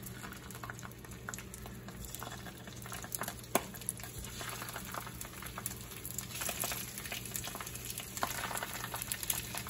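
Raw Italian sausages being laid one by one into hot olive oil in a stainless steel skillet, the oil sizzling and crackling more busily in the second half. There is a single sharp tap about three and a half seconds in.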